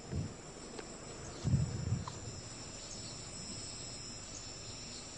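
Outdoor ambience: a steady high-pitched insect chorus, with two low muffled thumps, one just after the start and one about a second and a half in.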